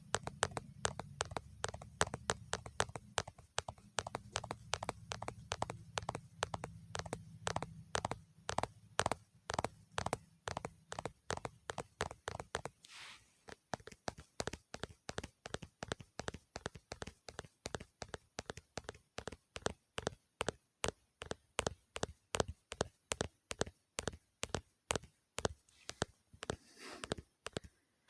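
ASMR tapping: a steady run of quick, sharp taps, about four a second, with a low hum beneath them that stops about halfway through.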